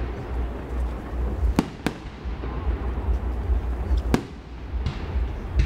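Aerial fireworks shells bursting: three sharp bangs, two in quick succession about one and a half seconds in and another about four seconds in, over a steady low rumble.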